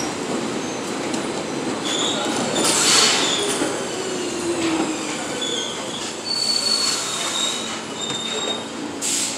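A New York City subway train rolling past the platform, its cars rumbling over the rails while the wheels give off thin, high squeals that come and go.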